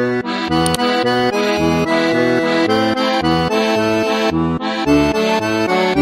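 Accordion playing a tune, a right-hand melody over a steady left-hand bass-and-chord accompaniment, with bass notes about twice a second.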